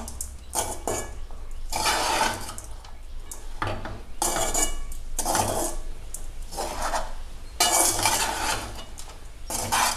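A metal ladle scrapes and clatters against a metal kadai as cooked rice is stirred and tossed through coconut seasoning. It comes in repeated strokes of about a second, with short pauses between them.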